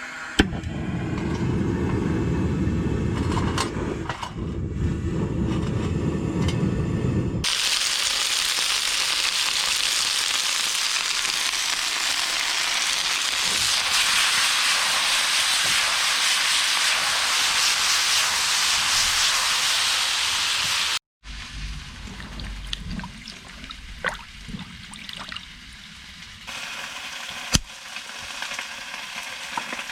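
Chicken wings sizzling loudly in a pan over a wood fire, a steady frying hiss that stops abruptly and later resumes more quietly. It is preceded by about seven seconds of low rumbling noise, with a few sharp clicks in the quieter stretch.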